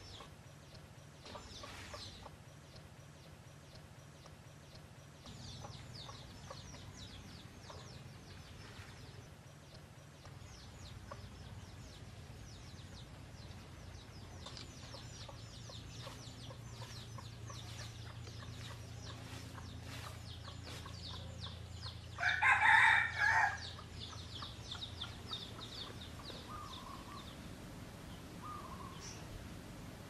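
Red junglefowl rooster crowing once, a short clipped crow about two-thirds of the way through, followed by a few soft short calls. Faint high chirping runs underneath throughout.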